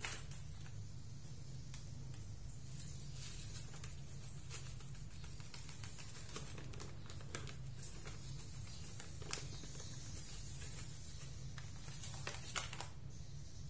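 A few light clicks and taps of kitchen items being handled on a table, over a steady low hum.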